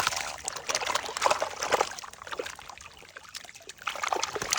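Water splashing and trickling in irregular bursts, loudest in the first two seconds and again near the end.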